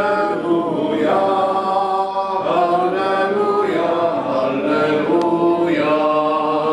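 Unaccompanied group singing of a church hymn, with long held notes in slow phrases and brief breaths between them.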